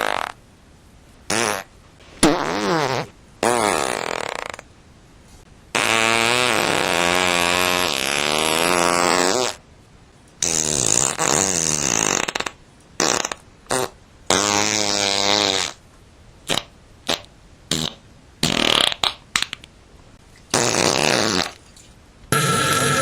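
A rapid series of fart sound effects, about fifteen in all, with short gaps between them: several long ones that waver up and down in pitch, the longest lasting nearly four seconds, and many short sharp ones in quick succession.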